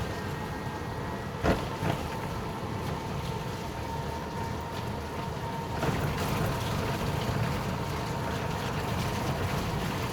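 Road noise inside a moving NWOW EMC Golf electric vehicle: a steady rumble of tyres and traffic with a thin steady whine through it. A sharp knock comes about one and a half seconds in, followed by a smaller one.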